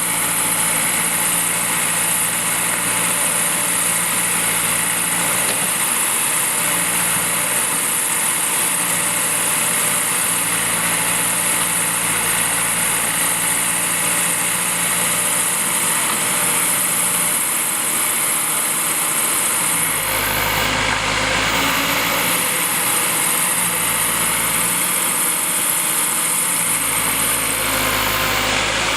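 Diesel engine of earthmoving machinery running steadily, with a deeper rumble swelling twice in the latter part.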